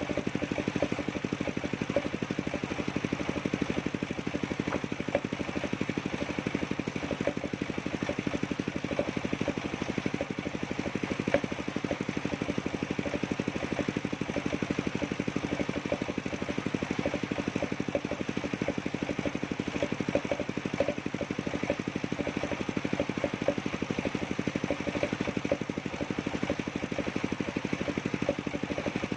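Engine of a mobile circular sawmill running steadily, with a rapid, even beat.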